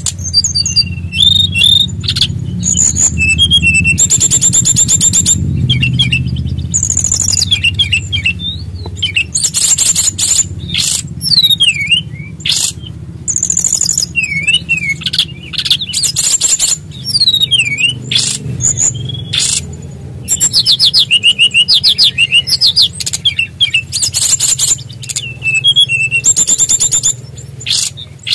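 A small songbird of the kind Indonesian bird-keepers call SRDC (sikatan rimba dada coklat) in full song: rapid, loud phrases of high buzzy trills and quick rising and falling whistles, one after another with short pauses, over a steady low hum.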